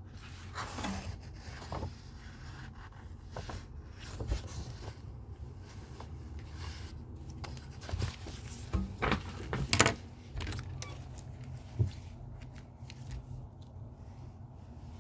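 Small handling noises: scattered clicks, taps and light rustling, busiest with a run of sharp clicks a little past the middle.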